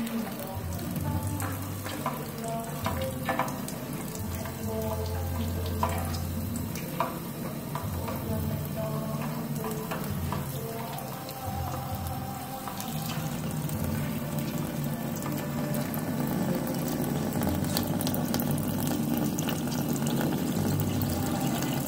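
Tap water running steadily into a stainless steel sink, with a few sharp clicks in the first several seconds.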